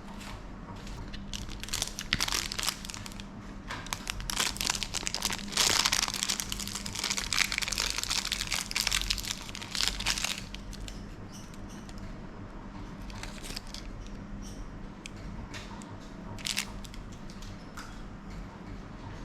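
Crinkling and rustling handling noise, dense from about two to ten seconds in, then a few light clicks, over a steady low hum.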